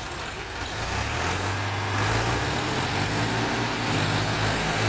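Diesel tractor engines working hard under load, hauling a loaded trailer through deep mud. The steady engine note comes in about a second in and grows louder around two seconds in.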